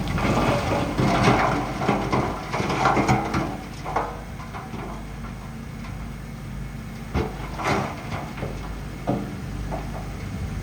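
Shantui bulldozer's diesel engine running under load, with loud scraping and grinding in the first few seconds and a few sharp metallic knocks later on.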